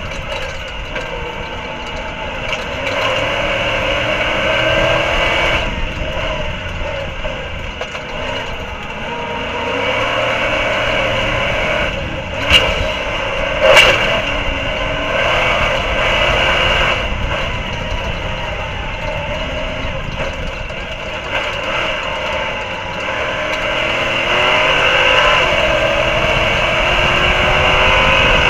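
Stadium Super Truck V8 engines running hard at race speed, heard from on board, the engine pitch rising and falling with throttle and gear changes over road and wind noise. Two sharp bangs about a second apart near the middle.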